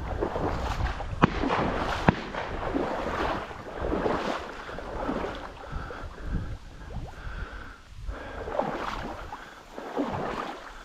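Reeds rustling and swishing in irregular bursts as someone pushes on foot through a reed bed, with wind buffeting the microphone. Two sharp clicks stand out, about a second and two seconds in.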